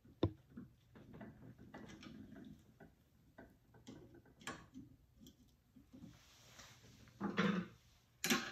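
Scattered small metallic clicks and taps as pliers and a pin tool press and twist a spring-loaded detent plunger into a Hurst shifter body clamped in a vise, with a louder handling noise near the end.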